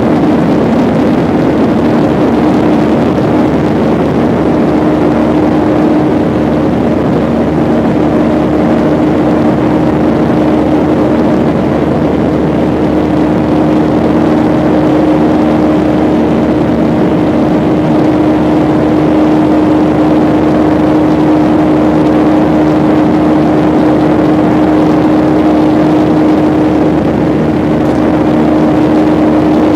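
Airliner's jet engines running steadily: a continuous rushing noise with a constant low hum that holds level and pitch throughout.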